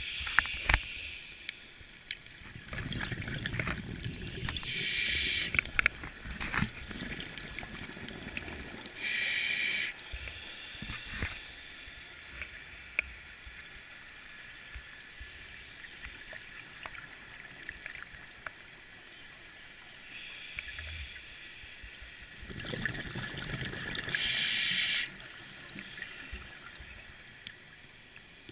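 Scuba diver breathing through a regulator, heard underwater: three short hissing breaths in and two stretches of low bubbling rumble from exhaled air, with scattered small clicks.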